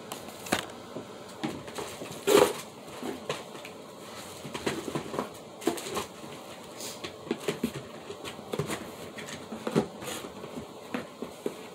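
Makeup packaging and the box being handled: scattered light clicks, taps and rustles, with one louder knock about two seconds in.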